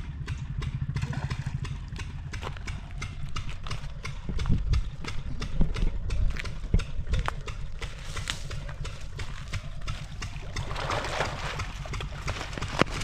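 Motorcycle engine idling with an even, rapid putter. A few dull thumps come around the middle, and a rushing hiss like fast-flowing water rises in the last couple of seconds.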